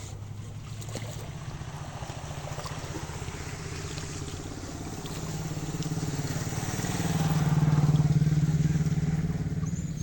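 A motor vehicle's engine running, growing louder to a peak about eight seconds in and then fading as it passes by.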